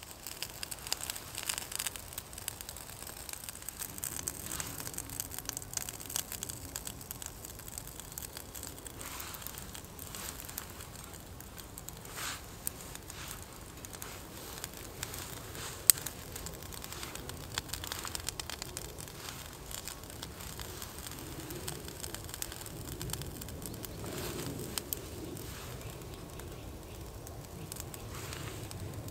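Small twig fire crackling and popping irregularly inside a folding metal wood stove as it catches, with one sharp loud pop about halfway through.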